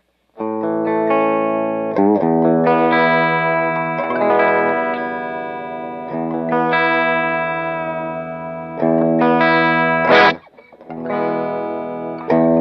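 Electric guitar played through a Fender Blues Junior III tube amp fitted with a Celestion Greenback Heritage heavy-magnet speaker, on the clean sound. Chords ring out and change every couple of seconds, with a brief break about ten seconds in before the playing resumes.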